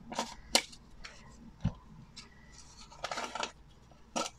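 Scattered sharp clicks and light taps of hard bath-oil coins and a plastic jar being handled on a towel, with a short scraping rustle about three seconds in.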